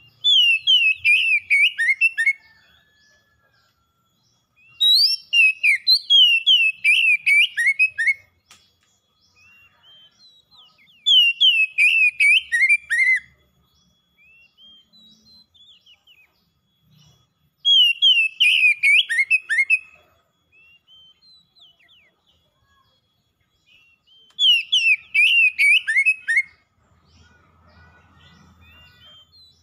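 Oriental magpie-robin singing: five bursts of about two seconds each, every one a quick run of downward-sliding whistled notes, spaced several seconds apart.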